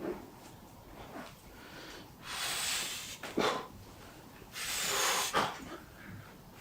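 A patient breathing out hard twice during a chiropractic adjustment, each breath about a second long, with a short click between the two.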